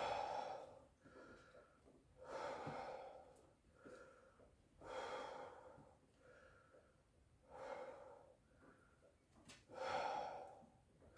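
A man breathing slowly and deeply while sitting in near-freezing ice water. There are five loud breaths, about one every two and a half seconds, with fainter breaths between them.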